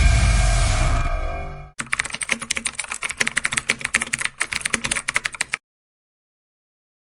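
A deep musical sting fades out over the first second and a half. Then comes a computer keyboard typing sound effect: rapid key clicks for about four seconds that stop abruptly.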